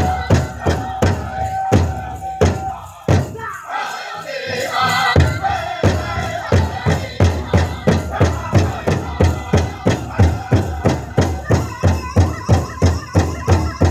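Powwow drum group beating a big drum in unison and singing a chicken dance contest song. The drumming breaks off about three seconds in for a few single hard beats, then comes back at a faster steady beat with the singing over it.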